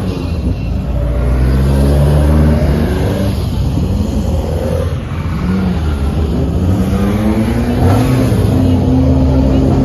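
Several Alfa Romeo race cars' engines running together on the starting grid, idling and being revved, their overlapping notes rising and falling at different pitches.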